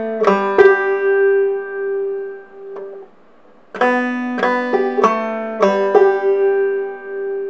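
Five-string banjo played clawhammer style, slowly picking the same short phrase twice: a note on the open second string, then the third string fretted at the second fret and open, ending on the fifth-string offbeat that rings on for about two seconds.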